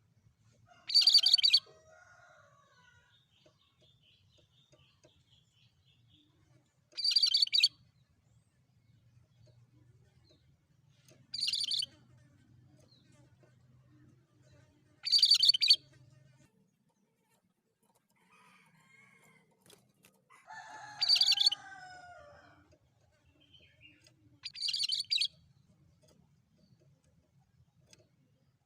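Cucak kerinci (Himalayan bulbul) singing short, loud, high-pitched phrases, six of them a few seconds apart; the one about two-thirds of the way in is longer, with lower notes that fall.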